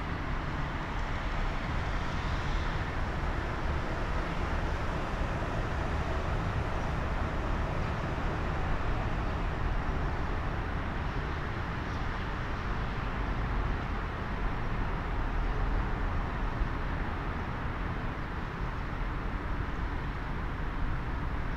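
Steady roar of a twin-engine jet airliner's engines on final approach, with a fluctuating low rumble underneath.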